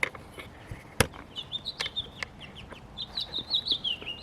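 A small bird chattering in a rapid series of short, high chirps that grow louder toward the end, with two sharp clicks near the start, the second, about a second in, the loudest.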